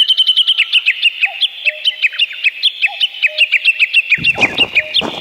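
A bird chirping rapidly: a steady run of short, high chirps, several a second. About four seconds in, a rush of low noise joins.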